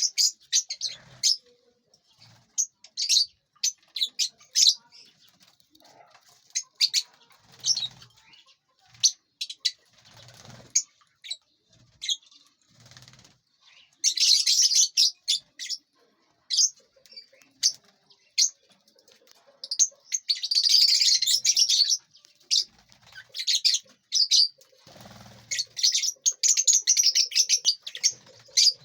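A flock of lovebirds chirping: many short, sharp, high calls, thickening into dense chattering bursts several times, with occasional soft flutters of wings.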